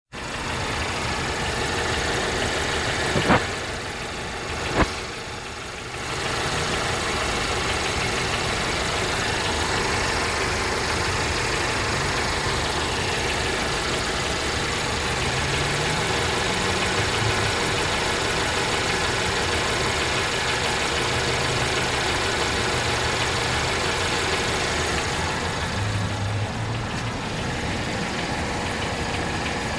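Infiniti Q50 2.0t's turbocharged four-cylinder engine idling with a knocking, tapping noise that the owner says began after the first oil change. Two sharp clicks sound about three and five seconds in.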